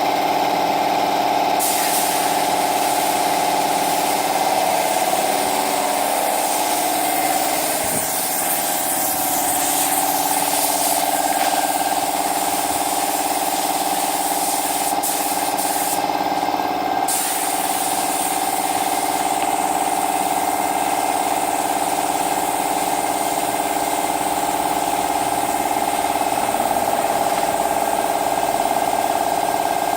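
A small machine or power tool running steadily, with a constant hum under a hiss.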